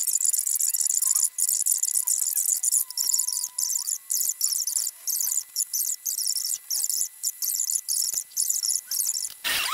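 Insects chirring in a dense, high-pitched chorus that pulses about twice a second.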